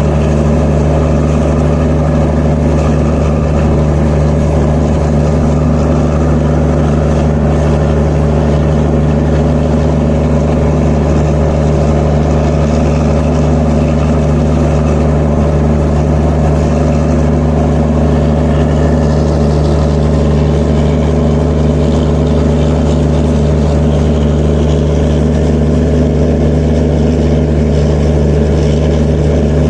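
Diesel generator sets in an Indian Railways train's generator car running at constant speed, an even, unchanging engine hum.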